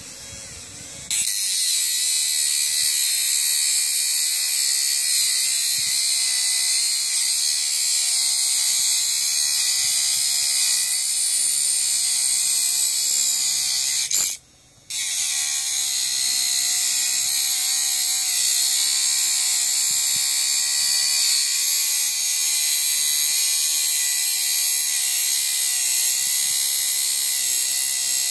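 Homemade mini grinder, a 12 V DC motor spinning a small cutting disc, grinding through a hardened concrete nail: a steady high-pitched whine with abrasive grinding hiss. It starts about a second in, cuts out for about half a second near the middle, then carries on.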